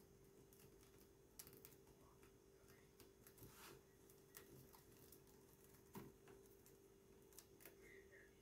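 Faint, irregular light clicks and rustles of rolled newspaper tubes being bent and tucked into a woven basket rim, with the most distinct click about six seconds in, over a faint steady hum.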